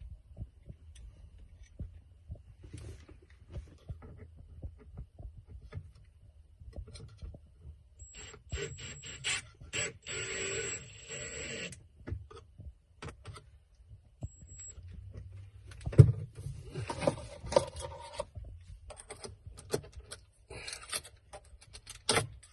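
Cordless drill/driver running in short bursts for a few seconds to drive T25 Torx screws, with a thin high whine from the motor, amid scattered clicks, taps and rattles of parts and tools being handled.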